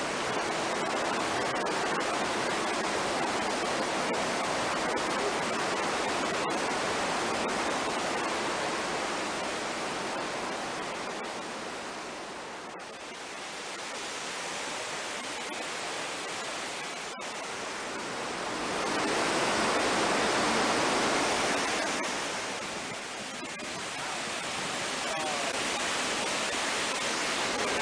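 Waterfall rushing with a steady, dense roar of falling water. It swells louder about two-thirds of the way through and eases again.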